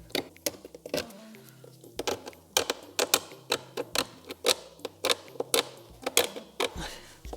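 A hand tool scratching the plastic surface of a car door panel in quick, irregular short strokes, a few per second.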